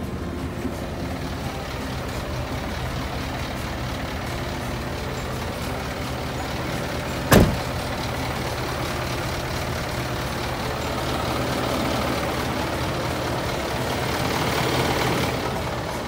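Hino Ranger truck's diesel engine idling steadily, with a single loud, sharp burst about seven seconds in.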